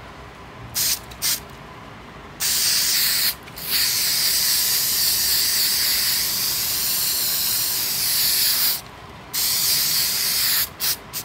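Aerosol can of 3M Super 77 spray contact adhesive spraying. It goes in two short puffs, then a run of long hissing sprays broken by short pauses, the longest about five seconds, and two more quick puffs at the end.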